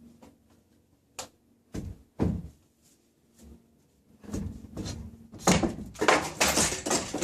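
A few separate knocks and thuds, then a denser, louder run of clattering from about four seconds in.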